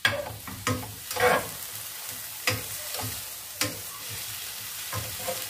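Shallots and chilli-galangal-lemongrass curry paste sizzling in a nonstick frying pan, fried in a little water instead of oil, as a metal spoon stirs them with irregular scrapes and clacks against the pan.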